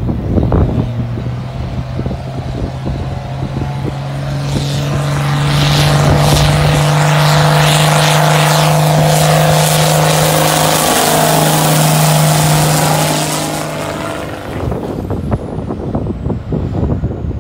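Ford diesel tractor running hard under heavy load while pulling a loaded cart uphill, with a steady engine note. It grows louder as the tractor approaches, is loudest as it passes close by, and fades as it pulls away.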